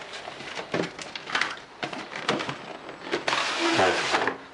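Cardboard packaging handled as a motherboard's retail box is opened: scattered taps and scrapes, then about three seconds in a longer sliding rustle as the printed lid comes off the inner box.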